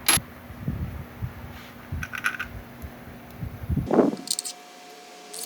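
Small metal clicks and light knocks of bolts being handled and set into a motorcycle engine's side cover, with a sharp click at the start.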